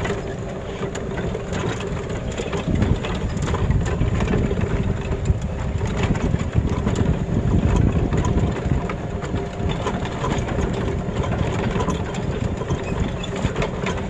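An engine running steadily with a low rumble and a constant drone, with scattered clicks and rattles over it.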